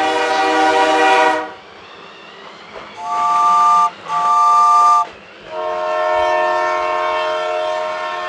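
Electronic steam-whistle sound effect from a Lego Duplo toy steam train: a long whistle blast that ends about a second and a half in, two short toots, then another long blast.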